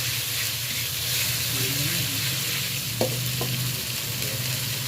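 Spice paste sizzling and frying in hot oil while it is stirred, with two sharp knocks of the spatula against the pan about three seconds in.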